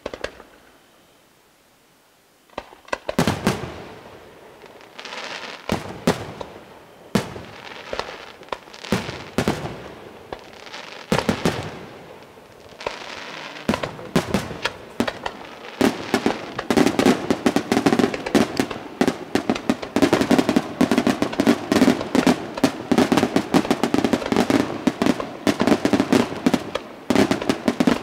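Aerial firework shells bursting: one bang at the start, then after a short lull a string of separate bursts about a second apart, which thickens about halfway through into a dense, continuous barrage of rapid reports.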